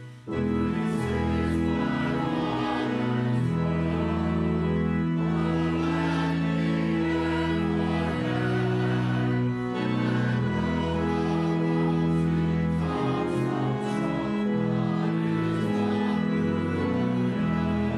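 Congregation singing a hymn with pipe-organ style accompaniment, taking up again after a brief break right at the start.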